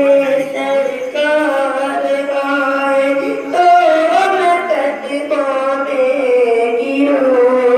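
A solo voice singing a naat, an Urdu devotional song in praise of the Prophet, in long held notes that bend up and down in pitch, with short breaks between phrases.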